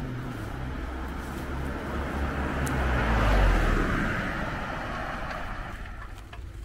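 A car passing close by: its engine and tyre noise swells to a peak about three and a half seconds in, then fades away.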